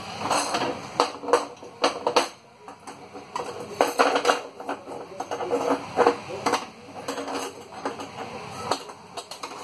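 Metal pots, pans and dishes being handled and moved about, clinking and clattering in a run of irregular knocks.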